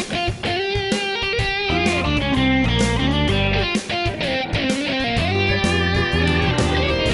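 Background music led by electric guitar, with a bass line and picked notes at a steady pace.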